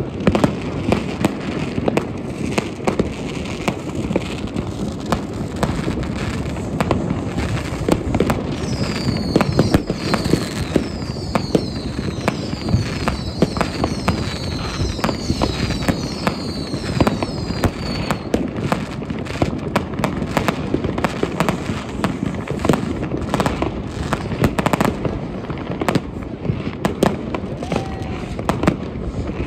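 New Year's Eve fireworks: a dense, unbroken crackle of bangs and pops from many firecrackers, rockets and battery cakes going off at once. From about 9 to 18 seconds in, many high whistles falling in pitch overlap on top of the bangs.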